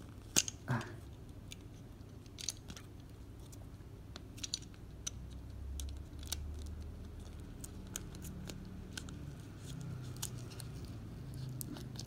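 Small-item packaging being handled and opened by hand: scattered sharp clicks and light rustles of plastic and paper, with a faint low hum underneath from about halfway through.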